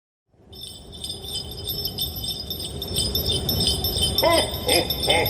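Cartoon sound effect of jingling, bell-like ringing over a low rumble. It fades in and swells louder, with a few short warbling tones near the end.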